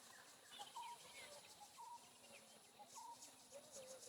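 Faint birds calling in forest: scattered short chirps and whistles, with one short note repeated about once a second, over a faint high insect hiss.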